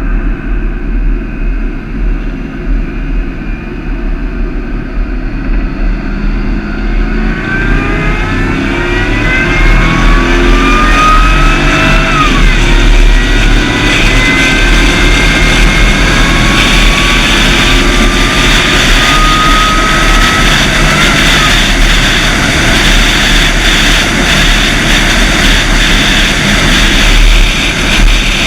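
Land Rover 4.2-litre supercharged V8 running, with its supercharger whine, the 'lament' of the engine, rising in pitch as the revs climb about a quarter of the way in. The whine drops suddenly a few seconds later, then climbs slowly again and falls once more, while the engine grows louder and stays loud.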